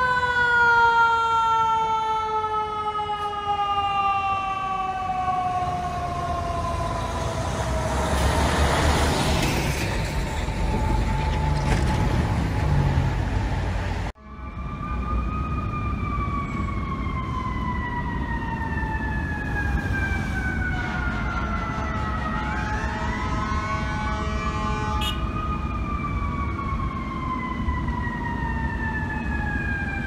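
FDNY fire truck sirens wailing, each long tone sliding slowly down in pitch, with a loud rush of noise about nine seconds in. Halfway through the sound cuts abruptly to another fire truck siren that falls, then rises again as a second wail overlaps it, with steady horn-like tones under it.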